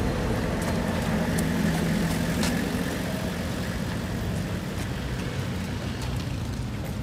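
Car engines idling, a steady low hum, with a few faint clicks and knocks over it.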